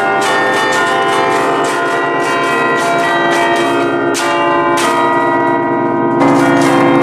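A set of eight church bells tuned in B-flat, cast by Ottolina of Seregno in 1949, rung festively from a hand-played keyboard: fast, overlapping clapper strikes, several a second, blending into a dense ringing wash. A heavier low bell sounds strongly about six seconds in.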